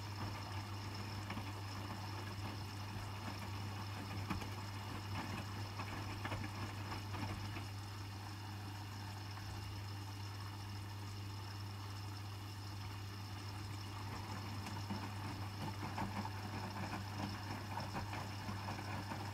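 Hotpoint WMFUG 942 washing machine filling for a rinse: water running into the drum as the level rises toward the door, over a steady low hum.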